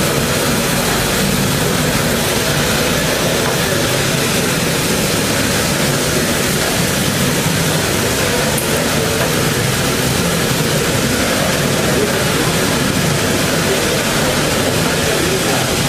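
Stretch-wrapping turntable running, rotating a pallet as stretch film is wound on: a steady mechanical rumble and hiss with no breaks.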